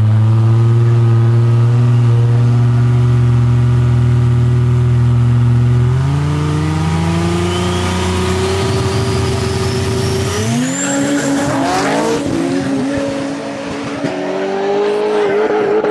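A GMC truck and a Chevrolet Camaro staged side by side, engines held at steady high revs on the line. About six seconds in they launch: engine pitch steps up and climbs through the gears, with a high whine rising over it as they pull away.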